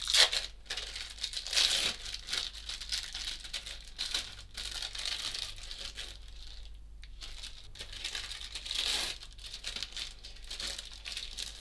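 Plastic packaging of processed cheese slices crinkling and tearing in irregular bursts as the slices are peeled out and laid down.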